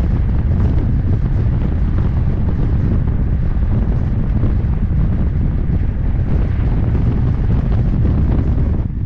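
Wind buffeting an action camera's microphone on a handbike descending fast on a mountain road: a loud, steady low rumble of rushing air.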